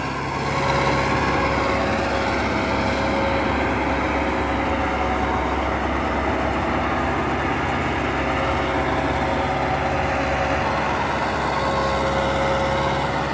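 Mahindra 595 Turbo tractor's 50 hp turbocharged diesel engine running steadily under load, driving a 7-foot, 48-blade Shaktimaan Champion rotavator that churns the soil.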